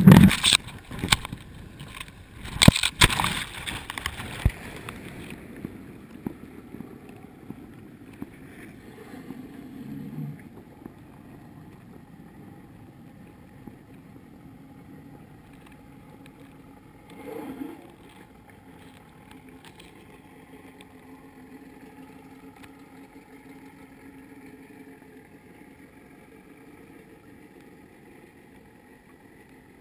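Water splashing and rushing over a camera housing at the surface, loud and crackly for the first few seconds. Then muffled underwater sound, with the fishing boat's engine as a faint steady hum of several tones through the water and a brief knock at about 17 seconds.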